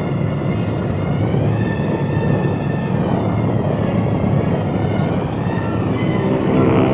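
Convair B-36 bomber's engines droning steadily, a rough roar with a faint wavering whine above it, growing louder near the end.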